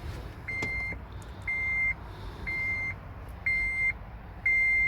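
Honda Element's warning chime beeping steadily, one short high beep about once a second, the kind of reminder a car gives with the key in the ignition and a door open.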